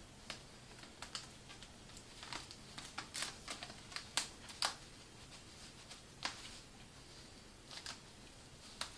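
Hands handling a rolled receiving blanket and a rubber band, binding the two ends together: faint fabric rustling with scattered small clicks, a cluster of them a few seconds in.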